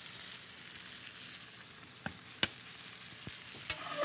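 Dover sole sizzling in hot butter in a stainless steel skillet: a steady frying hiss, with a few sharp clicks in the second half.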